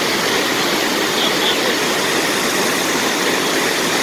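Steady rush of a waterfall and fast-flowing stream water.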